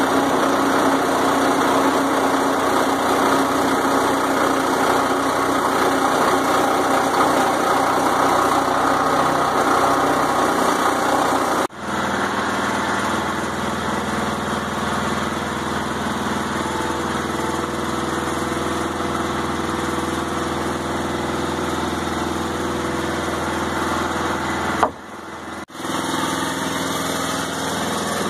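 Sawmill engine running steadily. About a third of the way in the sound changes abruptly to a slightly quieter, lower engine note, and there is a brief drop near the end.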